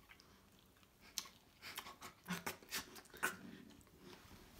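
Faint chewing and mouth smacks of two people eating a fried chicken and donut sandwich: a scatter of short, irregular clicks starting about a second in.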